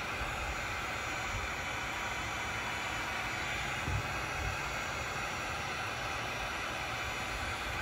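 Electric heat gun running steadily, its fan blowing a hot air stream onto the end of a PVC spiral suction hose to soften it.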